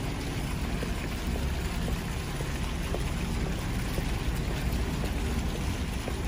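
Small fountain jets splashing and trickling into a shallow water channel, over a steady low rumble.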